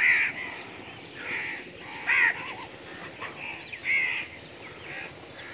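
Crows cawing: several harsh caws a second or two apart, the loudest right at the start, about two seconds in and about four seconds in.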